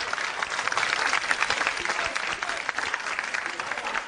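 Studio audience applauding, many hands clapping in a dense, even patter that eases off slightly near the end.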